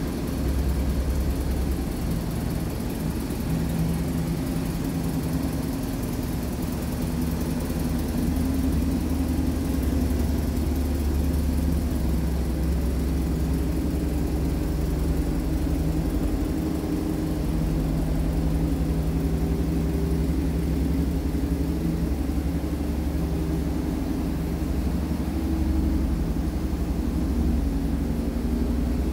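Vintage Mercedes-Benz estate car's engine idling with a steady, low, even hum.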